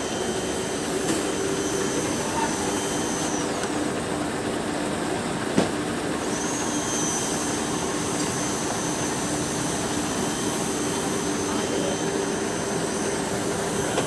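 Heavy diesel truck engines of a concrete mixer and a boom pump truck running steadily: a continuous mechanical hum with a faint high whine. A single sharp knock comes about five and a half seconds in.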